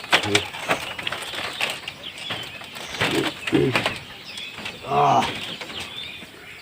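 Doves cooing, a few short low calls spread out, among faint clicks.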